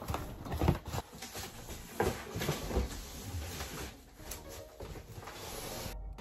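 Irregular knocks, clicks and rustling of cardboard boxes and packed items being handled, ending with a sudden change to quieter sound about six seconds in.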